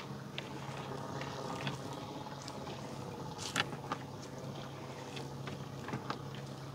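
Steady low hum of a boat engine running on the river, with scattered knocks and clicks from work on the boat; the loudest knock comes about halfway through.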